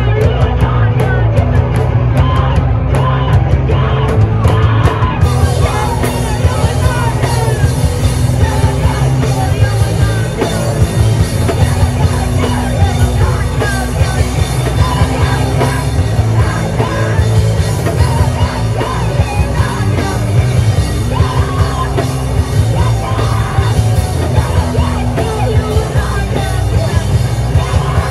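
A live band playing loud, fast punk-style rock with shouted vocals over guitars and drums, without a break.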